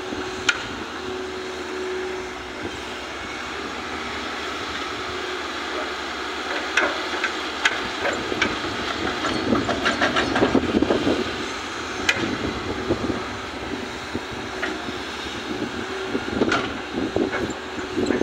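Hitachi crawler excavator's diesel engine running steadily as it works a dig-and-load cycle, with sharp metallic clanks and knocks from the bucket and boom now and then. Around the middle the sound grows louder and rougher as a bucketful of soil is dumped into a dump truck's steel bed.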